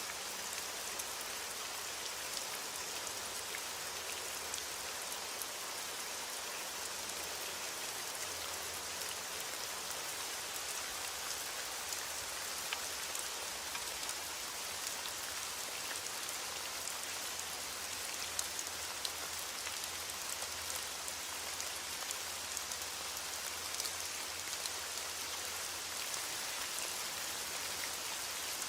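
Steady rain falling, an even hiss with many small drop ticks on a hard surface.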